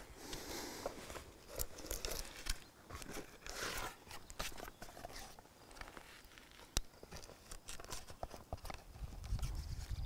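Quiet rustling and light irregular knocks of a stiff sheet of tree bark and a split wooden stick being handled, as the split stick is spread open and fitted over the folded rim of the bark. There is one sharp click nearly seven seconds in.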